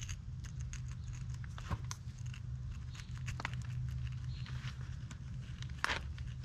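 Scattered light clicks and taps as a steel crack-repair staple and its cam are handled and fitted into epoxy-filled holes, over a steady low hum.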